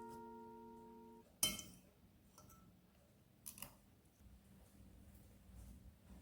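A ringing chime tone fading out and stopping about a second in, followed by a sharp click and a few faint taps.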